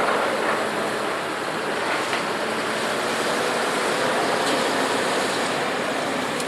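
Steady, loud din of scrap-yard heavy machinery: an even rushing noise with a faint engine hum and a few light clicks, and no big crashes.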